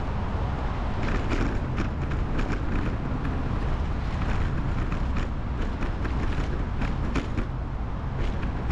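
Noise of a bicycle ride: a steady low rumble of wind and road, with frequent small clicks and creaks from the bicycle.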